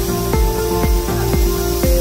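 Background music with a steady beat, about two beats a second, under an even hiss.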